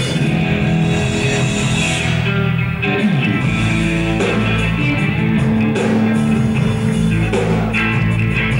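Live rock band playing an instrumental passage without vocals, with electric guitar to the fore.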